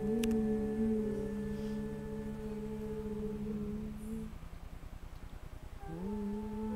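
A group of voices chanting in unison, holding one long low note. The chant breaks off about four seconds in, and a new held note slides in near the end.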